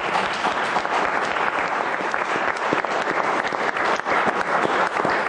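Audience applause: many people clapping their hands, steady throughout.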